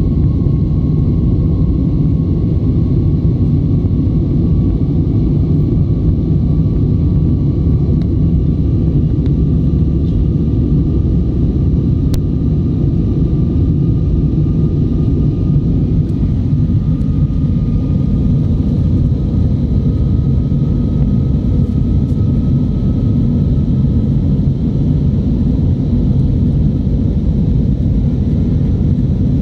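Cabin noise of an Air Arabia Airbus A320 in its climb after takeoff: a loud, steady rumble of the jet engines and rushing air, with a faint whine that rises slowly in pitch.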